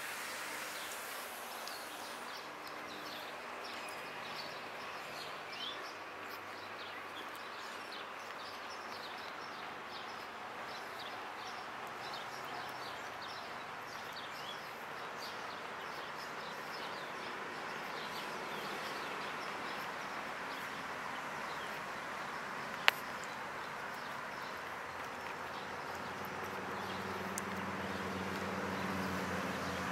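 Outdoor ambience beside a road: steady background noise with many short high chirps and ticks. There is a single sharp click about 23 seconds in, and a vehicle's engine grows louder near the end.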